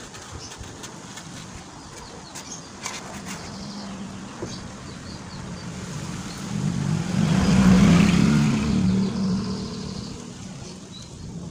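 A motor vehicle passes by, its engine hum swelling to a peak about eight seconds in and then fading. Light clicks and scrapes of a plastic spreader working body filler off a tin lid sound under it.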